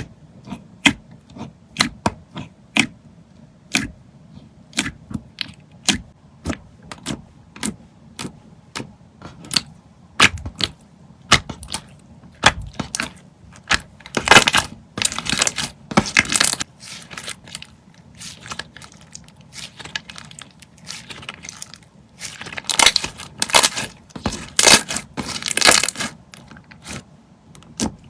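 Slime being pressed, poked and stretched by hand, making a run of sharp clicks and pops, with longer stretches of crackling about halfway through and again near the end.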